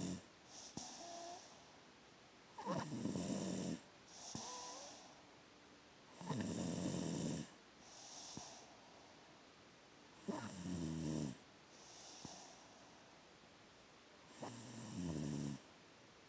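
A person snoring in sleep: a rough, pig-like snore on each breath in, four of them about four seconds apart, each followed by a softer breath out.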